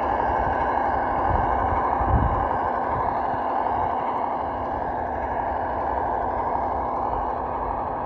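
Simulated V8 truck engine sound from the sound module of a 1:12-scale RC ZIL-131, played through the model's small speaker and running steadily. A short low thump comes about two seconds in.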